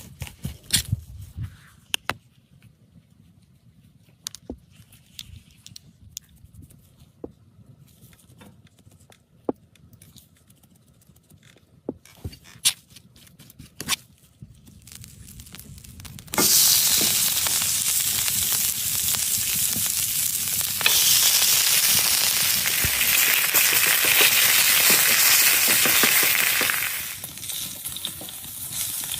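Scattered clicks and knocks, then a little past halfway a ribeye steak starts sizzling loudly as it fries on a hot surface. The sizzle grows a little louder and dies down near the end.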